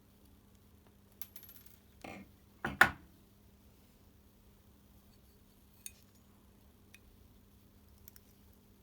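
A small hard object clatters onto a hard surface: a short rattle about two seconds in, then a louder metallic clatter just under a second later. A few faint clicks follow.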